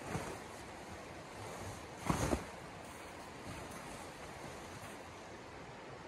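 Steady rush of a shallow river running over rocks, with brief louder rustles from canvas tent fabric being handled and shaken out, one right at the start and a louder one about two seconds in.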